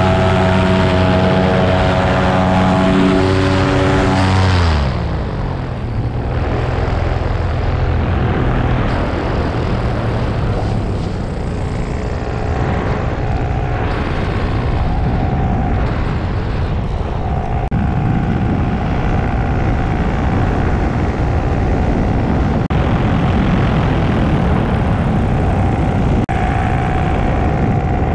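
Paramotor engine and propeller running at steady throttle, then throttled back about four and a half seconds in, the pitch falling. After that comes a steady rush of wind with the engine's lower drone beneath.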